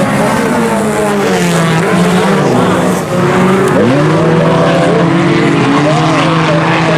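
Several IMCA Sport Compact race cars running hard in a pack, their four-cylinder engines overlapping at high revs. About three seconds in, one engine's pitch drops and then climbs again as it comes off and back onto the throttle.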